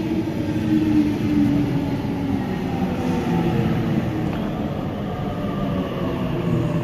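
Sydney Trains Waratah (A set) double-deck electric train pulling into the platform, steady motor tones over the rumble of its wheels.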